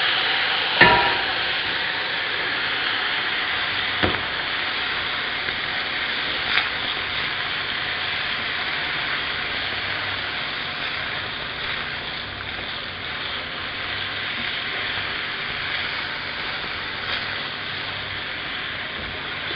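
Spaghetti and octopus sizzling steadily in a hot frying pan while being tossed with tongs, with a few light clicks and knocks, the sharpest about a second in.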